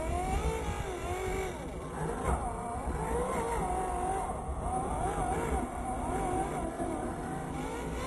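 Drive motor and gears of a 1:10 scale RC off-road car whining, the pitch rising and falling as the throttle changes while it climbs over dirt mounds, over a low rumble.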